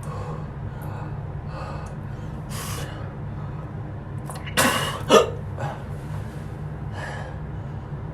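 A man gasping and breathing hard through his mouth in short, sharp breaths from the burn of a hot chili pepper. The loudest two gasps come about halfway through, over a steady low hum.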